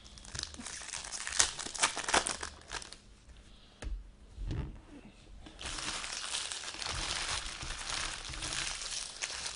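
Plastic wrapping on a trading-card box and its packs crinkling and tearing as it is opened by hand: a run of sharp crackles in the first couple of seconds, then steady rustling from about halfway through.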